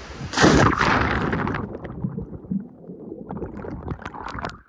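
A person jumping feet-first into a pool of water: a loud splash about half a second in, then the sound goes muffled as it is heard from underwater, with a low rumble and bubbles popping and gurgling.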